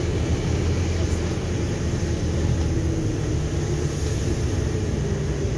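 Inside a Scania double-decker bus on the move: a steady diesel engine drone mixed with road and tyre noise on a wet road. About four seconds in, the engine note rises in pitch.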